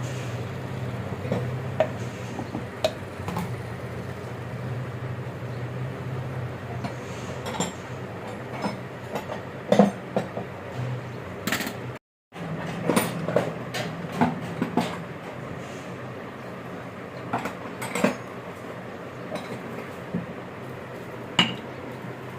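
Metal tools and parts clinking and knocking as they are handled during turbocharger repair work, as scattered sharp strikes over a steady low hum.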